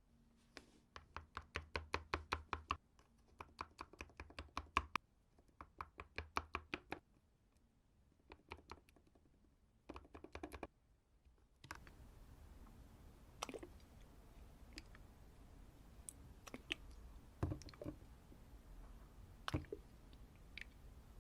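Slime being handled, making bursts of rapid crisp clicks and crackles. About twelve seconds in, a steady background hiss comes up and the clicks thin out to occasional single pops.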